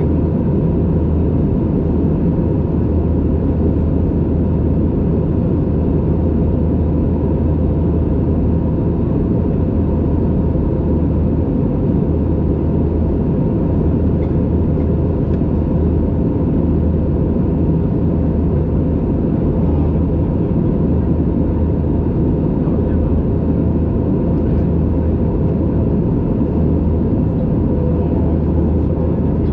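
Steady cabin drone of an Airbus A320neo in the climb, heard from a window seat over the wing: a deep hum from its CFM LEAP-1A engines under the rush of air past the fuselage, with a faint steady high tone.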